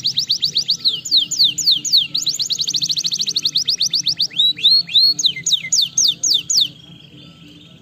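Domestic canary singing a run of rapid trills of high notes that sweep down in pitch. The pace changes from phrase to phrase, from very fast rolls to slower, wider swoops, and the song stops abruptly near the end.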